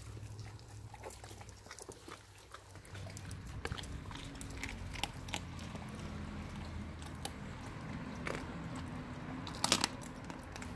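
Dogs chewing raw turkey carcass, crunching through the bones with irregular sharp cracks and crunches, loudest in a quick cluster near the end.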